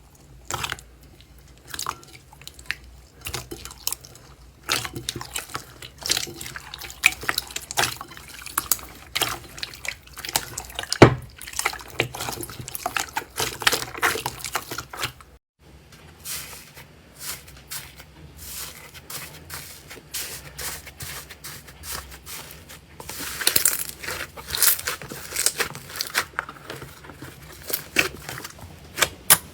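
Slime being squeezed and poked, making irregular wet clicks and pops, with one loud pop about 11 seconds in. There is a short break about halfway through, then quicker clicking near the end.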